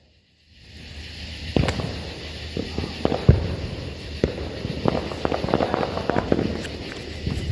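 Lit consumer firework going off: a steady crackle with a rapid, irregular run of sharp pops, starting about half a second in.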